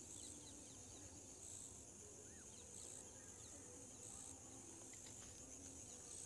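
Near silence: faint rural dusk ambience of insects, with a steady high-pitched trill that pulses about once a second and a few short, faint chirps.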